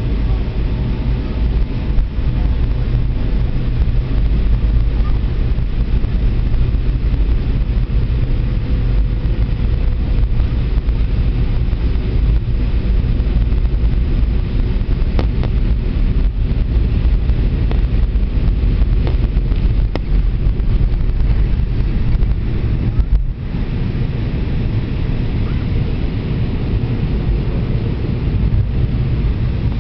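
Cabin noise of an MD-82 jet airliner on its takeoff roll and initial climb: the rear-mounted Pratt & Whitney JT8D turbofans at takeoff thrust, a loud, steady low rumble with a brief drop in level about two-thirds of the way through.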